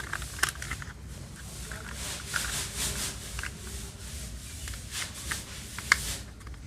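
Plastic toy parts being handled and pressed together as the rear wheels go onto a toy scooter: rubbing and scraping with scattered small clicks, and one sharp snap about six seconds in.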